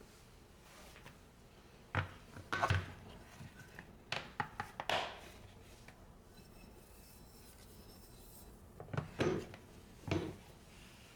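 Scattered knocks and a few short scraping strokes from a knife in a sharpening guide being passed over and handled on a whetstone, with light deburring passes. The loudest knocks come about two to three seconds in and again near the end.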